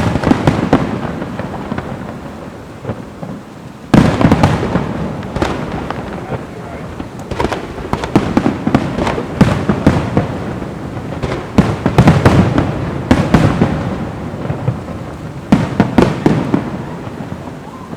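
Fireworks going off: repeated sharp bangs, each trailing into crackling and rumble. Heavy bursts come at the start and again about four seconds in, with more clusters of cracks through the rest.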